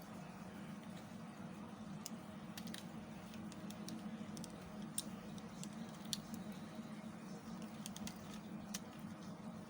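Knife carving into a bar of soap: scattered crisp clicks and cracks as the blade cuts and flakes break away, about seven separate clicks at uneven intervals, over a steady low hum.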